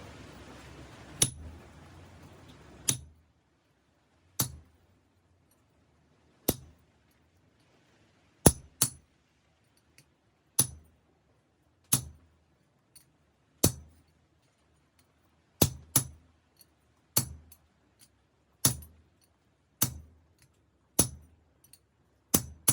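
Hammer blows on an anvil as a 5160 steel knife blank is forged: about sixteen sharp, ringing strikes at an unhurried pace, every one to two seconds. A steady hiss stops about three seconds in.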